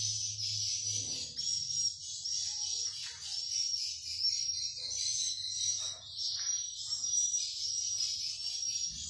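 Edible-nest swiftlets twittering: a dense, unbroken high chatter of calls with a short, sharper chirp repeating over and over.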